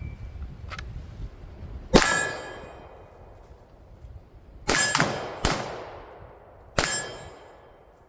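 Five pistol shots, each followed by a ringing metallic ping of a hit on steel. The first comes about two seconds in, three more follow close together past the middle, and the last comes near the end.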